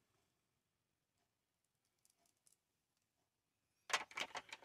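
Near silence for most of the stretch, then a quick cluster of small clicks and taps near the end.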